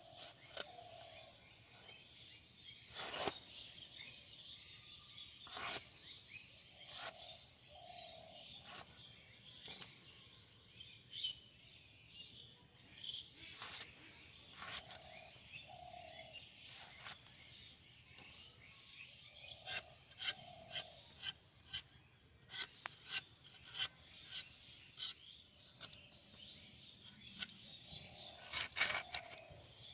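Vegetables being cut and peeled by hand with a blade: rasping, scraping strokes against the skins and flesh, with sharp chopping clicks that come in a quick run about two-thirds of the way through and again near the end.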